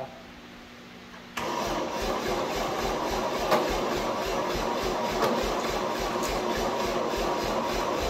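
Continental gas engine of a sawmill power unit being cranked by its starter, kicking in suddenly about a second and a half in and going on as a steady churn with even low pulses about three a second. The engine has sat for years and its carburetor, with bad gaskets, needs a rebuild kit.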